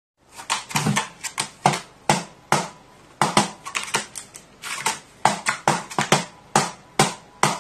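A crow pecking at a small drum whose head has been repaired with silicone resin: a run of sharp, uneven taps, about two to three a second, each with a short ring.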